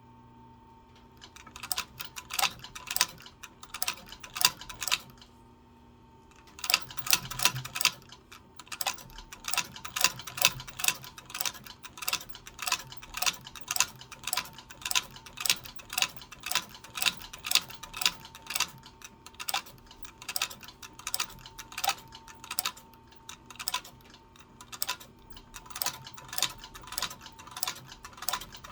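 Leather sewing machine stitching a leather knife sheath with heavy 277 thread, the needle stroke clacking at about two to three stitches a second. It starts about a second in, stops briefly after about five seconds, then runs on at a steady pace.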